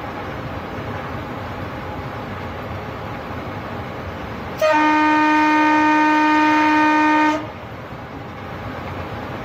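Locomotive horn sounding one long, steady blast of nearly three seconds, starting about halfway through and cutting off sharply, over the steady rumble of the train running along the track.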